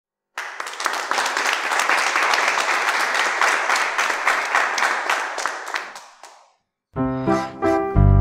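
A crowd applauding, a dense patter of claps that fades out about six seconds in. After a short gap, music with a melody and heavy bass notes starts near the end.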